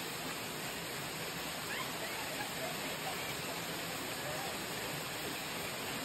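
Waterfall: a steady rush of falling water, even and unbroken.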